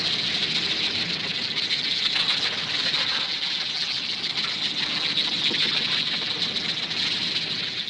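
Cartoon sound effect of rushing floodwater: a steady, loud hissing torrent that fades away at the end.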